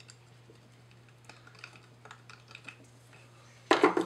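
A pointed tool ticking and scratching on a small piece of acrylic sheet, in a scattered series of light clicks, then a louder rattle of the plastic being handled near the end. A steady low hum runs underneath.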